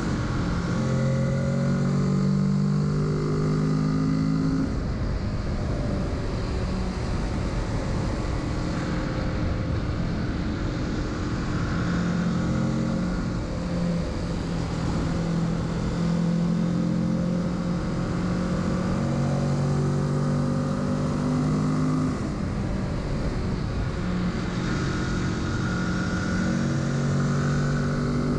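Kawasaki Z650's parallel-twin engine running under way, its pitch shifting up and down every few seconds with throttle and gear changes, over steady wind and road noise.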